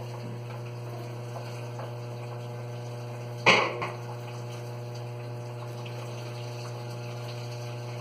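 Electrolux LT15F top-loading washing machine filling: a steady electrical hum with water running into the tub. About three and a half seconds in there is a brief loud knock, followed by a smaller one.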